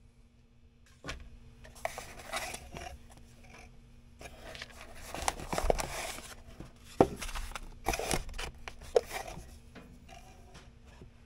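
Cardboard box and kraft-paper wrapping being handled, rustling and scraping as the wrapped knife is lifted out of the box, starting about a second in, with a few sharp taps.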